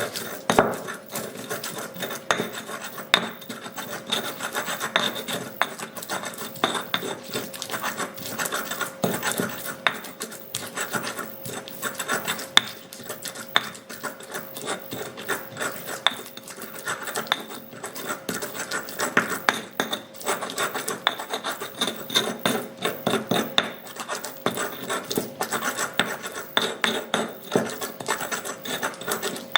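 Spices being ground by hand with a pestle (ulekan) in a cobek mortar: continuous gritty scraping and rubbing, broken by frequent small knocks as the pestle strikes and grinds against the bowl.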